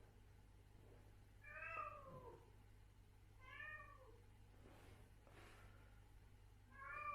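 Adult female cat meowing quietly three times, each meow a short call that rises and then falls in pitch, the third beginning near the end. Between the second and third meows there is a soft rustle.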